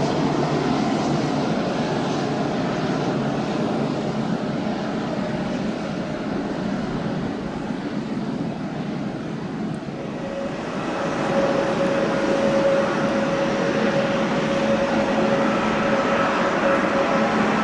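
Jet airliner engine noise. About ten seconds in it changes to a louder engine sound with a steady whine: a Solaseed Air Boeing 737-800 coming in to land.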